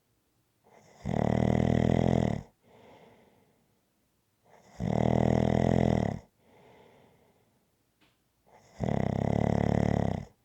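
A person snoring in a steady rhythm: three loud, buzzing, rattling snores on the in-breath, about four seconds apart, each followed by a soft breath out.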